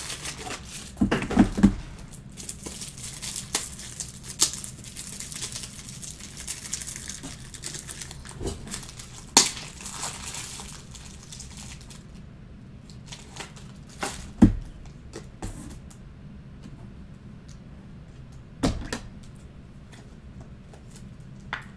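Trading card pack wrappers being torn open and crinkled, a crackling rustle with many small clicks for the first twelve seconds or so. Then it turns quieter, with scattered taps and two louder knocks as cards and packs are handled on the table.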